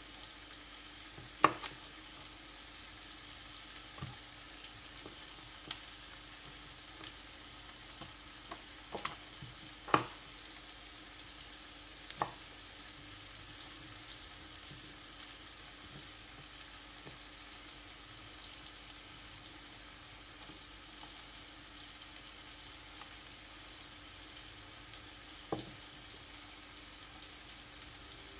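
Pieces of chicken sizzling steadily in a frying pan on a gas burner, with a few sharp pops or clicks, the loudest about a second and a half in and again about ten seconds in.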